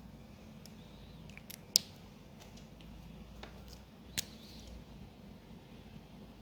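A few small, sharp clicks and light handling noises from craft supplies being handled on a desk. The sharpest click comes about two seconds in, with another about four seconds in.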